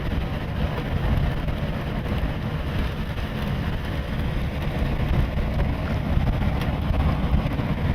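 Steady engine and road noise of a moving car, heard from inside the car, mixed with wind noise.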